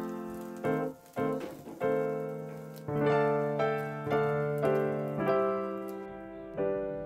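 Background piano music: slow chords struck every half second to a second, each ringing and fading away.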